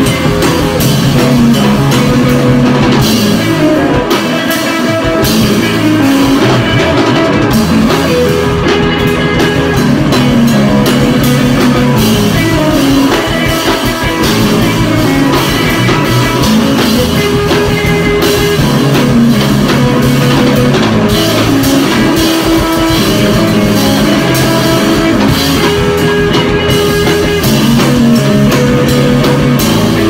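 Loud rock music with guitar and a drum kit playing steadily.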